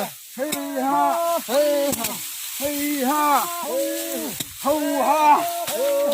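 A high-pitched voice in short arching phrases, broken by brief gaps, over a faint crackling hiss.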